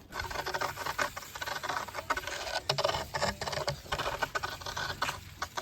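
Dry firewood and branches being handled and piled up: irregular rustling with many small knocks and cracks.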